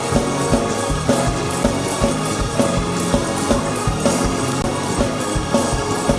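Fast gospel praise-break music from a church band: held keyboard chords over a driving drum beat with a hit about every third of a second.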